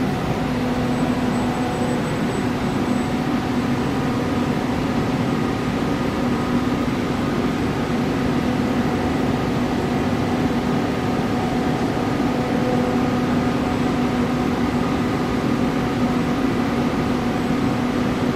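5-axis CNC router running a program: a steady machine hum with a held low tone and a few fainter steady tones.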